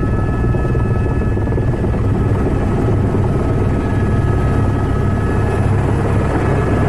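Helicopter engine and rotor noise heard from inside the cabin: a loud, steady deep drone with a few thin steady whines above it, as the helicopter comes in low over a dirt helipad to land.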